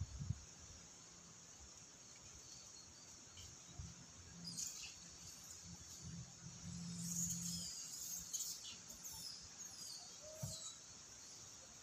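Faint outdoor background with a scatter of short, high, falling bird chirps from about four seconds in until about ten seconds in, over a faint low hum in the middle.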